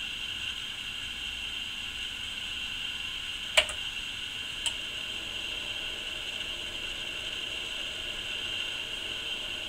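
RIGOL DS1000-series digital oscilloscope's cooling fan running as a steady, even hiss. Two sharp clicks come about three and a half and four and a half seconds in, the first one loud.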